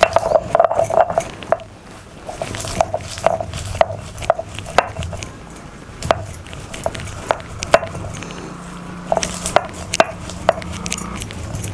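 A stone roller crushing and grinding roasted peanuts, dry coconut, ginger and garlic on a stone grinding slab (pata-varvanta). The stone rasps and knocks with irregular sharp cracks as the nuts break under the rocking roller.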